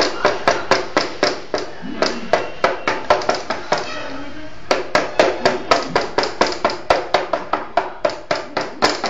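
Rapid rhythmic sharp strikes, about four a second, with two short breaks, the first about two seconds in and the second about halfway through.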